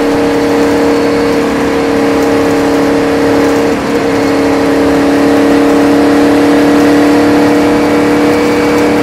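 Indy Lights open-wheel race car engine heard from the cockpit, running at a steady three-quarter throttle at speed on an oval. It holds one steady drone under wind and road noise, with a brief dip about four seconds in.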